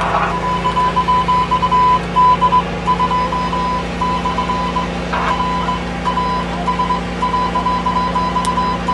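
A high-pitched electronic tone beeping on and off in an irregular pattern of short and long beeps, over a steady low machine hum. A brief rustle about five seconds in.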